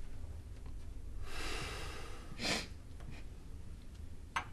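A person's breathing: a long breath out, then a short sharp sniff, with a light click near the end.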